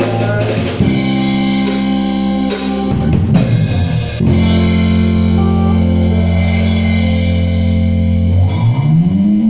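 A band playing an instrumental passage: long held bass and guitar notes over a drum kit, with a burst of drum hits a few seconds in and a low note sliding up near the end.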